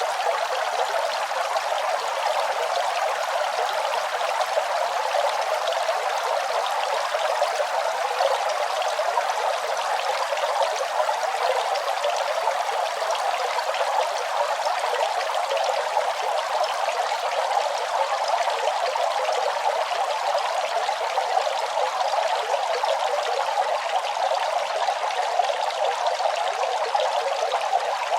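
Running water splashing in a steady, unbroken stream, with most of the sound in the middle range and little low rumble.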